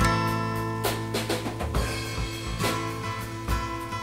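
Acoustic guitar music: sustained chords with sharp percussive hits over them.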